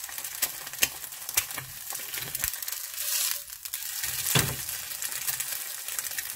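Egg frying in oil in a nonstick pan: a steady sizzle with crackling pops, growing louder for a moment about three seconds in. A silicone spatula scrapes against the pan just after four seconds, while the egg is pushed into shape.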